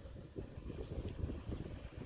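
Blizzard wind buffeting the microphone: an irregular, gusty low rumble.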